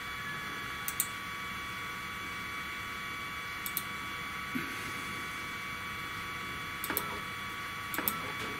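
Steady high whine from a powered-up 3018 CNC router's stepper motors and electronics. Four short clicks come as the Z axis is jogged down in small steps to touch off on paper over the workpiece.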